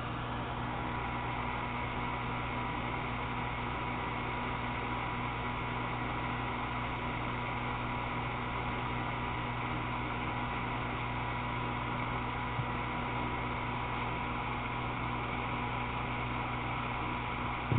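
Steady hum and hiss with several steady tones running under it, and a faint click about two-thirds of the way through.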